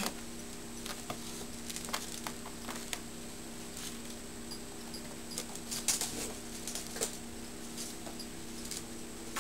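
Kitten clawing and batting at a fabric armchair cover and a toy wand: scattered soft scratches and light taps, a few sharper ones about six and seven seconds in, over a faint steady hum.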